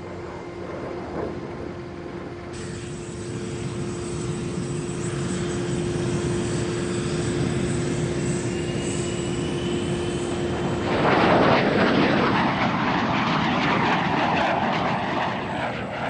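Twin jet engines of an F-117 Nighthawk running with a steady tone under the engine noise. About eleven seconds in, a much louder jet roar takes over as the aircraft flies by.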